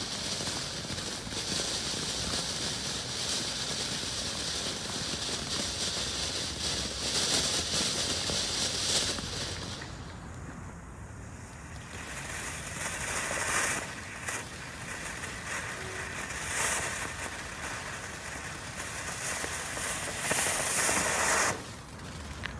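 Ground firework fountain hissing as it sprays sparks, steady at first, then coming in surges and cutting off suddenly near the end.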